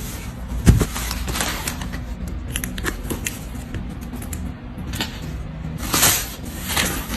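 Plastic packaging crinkling and rustling as it is handled, in irregular bursts over background music.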